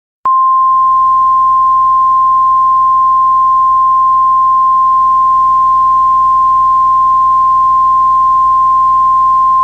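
Emergency alert tone: a single loud, steady pure tone of about 1050 Hz, the NOAA Weather Radio warning alarm used as the EAS attention signal. It starts a moment after a brief silence and announces that a warning message follows.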